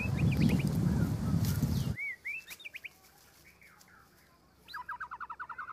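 Birds calling with short arched chirps, and near the end a rapid trill of about ten notes a second. Under the first two seconds lies a loud low rumbling noise that cuts off abruptly.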